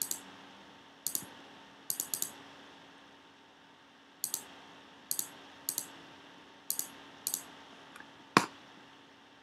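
Computer mouse button clicking at irregular intervals, about ten clicks, most heard as a quick press-and-release pair. One sharper, louder click comes about eight and a half seconds in.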